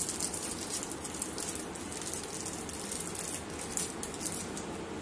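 A plastic piping bag rustling and crinkling as it is handled and filled with caramel: a run of short crackles that die away about four and a half seconds in, over steady low room noise.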